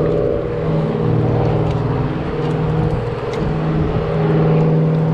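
Steady drone of a running motor engine, a low hum with a higher tone above it, which fades briefly about three seconds in and then returns.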